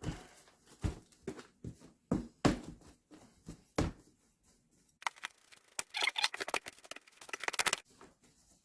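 Hands mixing dry potting soil in a bin: irregular scrapes and soft knocks of soil being turned over, then after a short pause a denser stretch of fast crumbly rustling.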